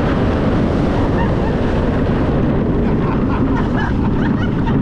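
Steady, loud wind rushing and buffeting over the microphone.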